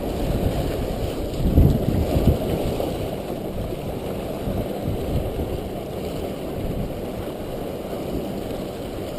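Wind buffeting the microphone over the wash of waves against jetty rocks: a steady low rumble, with a couple of stronger gusts about two seconds in.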